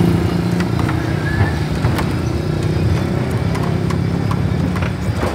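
Steam train running slowly along a narrow-gauge track: a steady low rumble with knocks and rattles from the wheels, about two a second.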